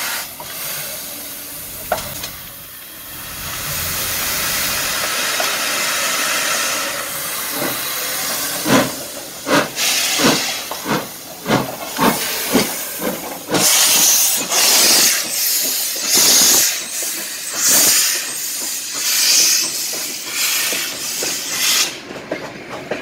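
Steam locomotive hissing as it vents steam, then pulling away. From about eight seconds in its exhaust chuffs set in at about two a second, and later come as louder, hissing chuffs about once a second.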